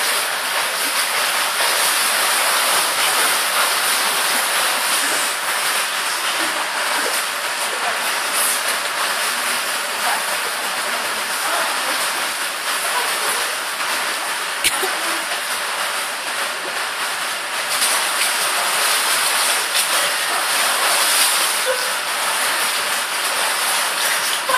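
Swimmers splashing and churning the water of a swimming pool, a continuous rushing hiss of water noise.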